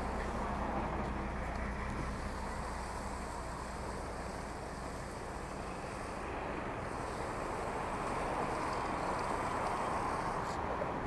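Fire truck's engine running, its low hum fading about halfway through as the truck pulls away, under steady wind noise.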